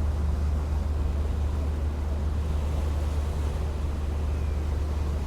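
A boat's engine running with a steady low drone, with a noisy wash of water and wind above it.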